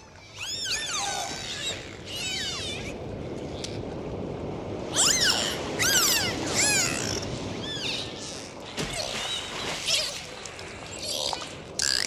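A pod of dolphins whistling underwater: many short arching whistles that rise and fall in pitch, often several overlapping, with buzzier pulsed bursts later on, over a steady underwater hiss.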